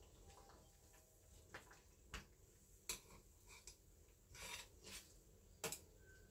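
Near silence with a few faint clicks of metal tongs against a stainless steel saucepan as ramen noodles are stirred, and a soft rustle around the middle.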